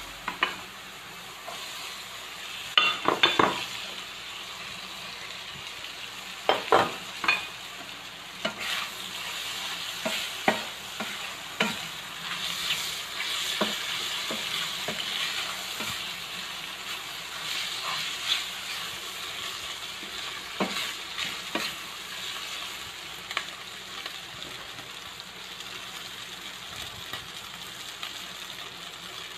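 Sliced mushrooms and ground meat sizzling in a frying pan with a steady hiss. A spatula scrapes and knocks against the pan in irregular strokes as the food is stirred, loudest around 3 and 7 seconds in.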